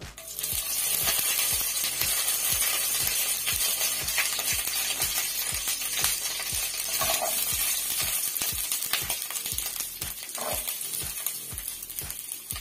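Green chilli pieces sizzling in hot oil in a pan: a hiss of frying that starts suddenly as they go in and carries on steadily.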